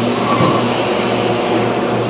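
Garbage truck engine running steadily, with a backup alarm sounding one last beep near the start.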